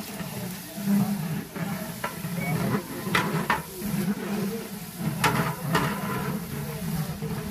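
A long-handled metal spatula stirring khichuri in a large aluminium cooking pot, scraping through the rice with sizzling underneath. Four sharp clinks of metal on the pot, in two pairs, come in the second half.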